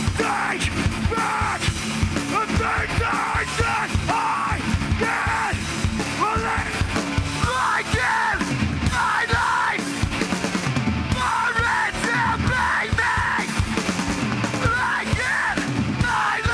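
Hardcore punk band playing live: shouted vocals in short phrases over electric guitars, bass and drums.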